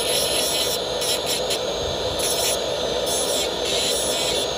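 Dental lab handpiece spinning a thin cutting disc against a porcelain bridge, grinding between the teeth. It gives a steady whirring hiss whose upper edge flickers as the disc touches and leaves the porcelain.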